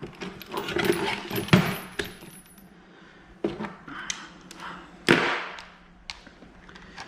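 Metal hand tools clinking and clattering against each other in a string of sharp knocks, loudest about one and a half seconds and five seconds in.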